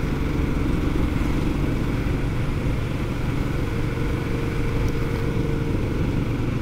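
Motorcycle engine running steadily at cruising speed, with wind noise over a helmet-mounted mic.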